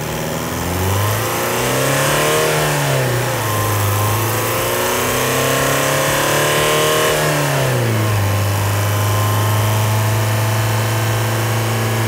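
Audi A4 B8 2.0 turbo diesel's four-cylinder engine revving up twice, the second rise longer, each time falling back, then running at a steady idle.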